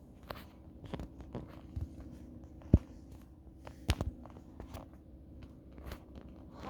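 Scattered short knocks and clicks at an uneven pace, with the loudest thuds about three and four seconds in.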